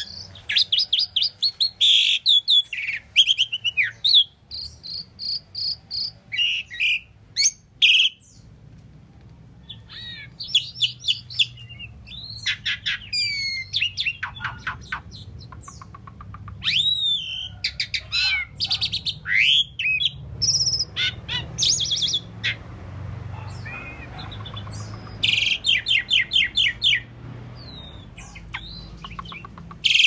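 Asian pied starling singing a varied song: rapid chattering runs of short notes mixed with rising and falling whistled slurs, in bursts with short pauses and a quieter stretch about two-thirds through.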